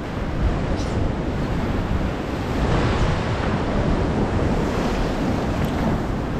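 Sea swell surging and washing against the rocks, with strong wind buffeting the microphone. Two light clicks, about a second in and near the end.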